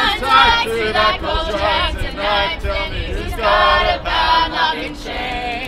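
A group of men and women singing a protest song together.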